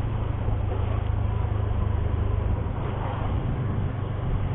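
Motorcycle running steadily while being ridden: a steady low engine drone under a noisy rush of road and wind.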